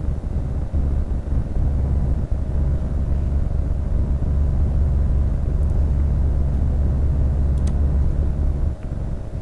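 Steady low rumble with a faint steady hum over it. A few faint mouse clicks come in the second half.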